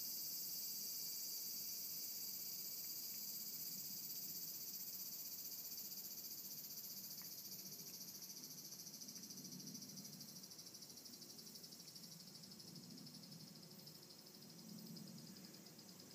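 A steady, fast-pulsing high trill of insects, fading slowly, with faint soft lapping and chewing from a cat licking a plate from about halfway through.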